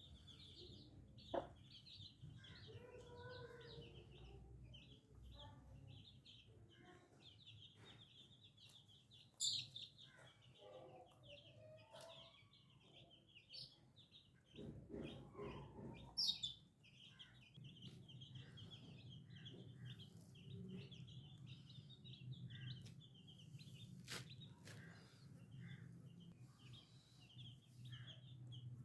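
Baby chicks peeping almost without a break, with a hen clucking now and then and a few sharp clicks or taps.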